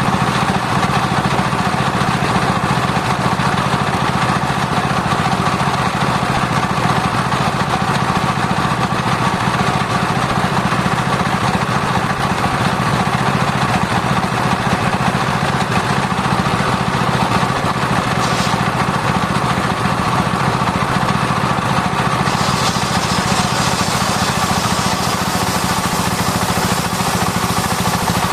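Sawmill circular saw running steadily, its drive humming with a constant low drone. About three-quarters of the way through, a higher hiss joins and stays.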